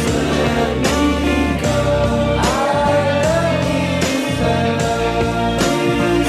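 Background song: a singing voice over instruments, with occasional percussive hits.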